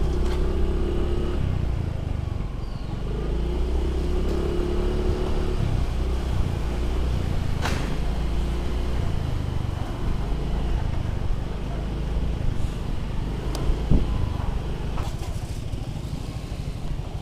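Motor scooter riding along a street, its small engine running steadily at cruising speed, with a sharp click about halfway through and another about three-quarters of the way through.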